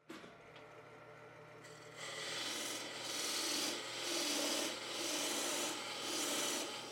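Abrasive rubbing on wood in slow back-and-forth strokes: faint scraping at first, then from about two seconds in, about five even strokes that each swell and fade.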